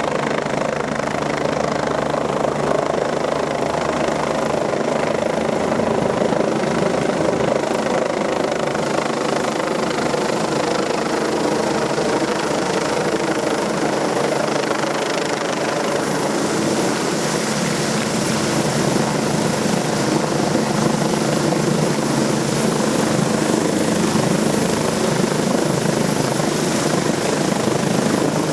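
Helicopter running close by, its rotor wash blowing typhoon-strength wind across the microphone: a loud, steady rush with a thin, steady high whine.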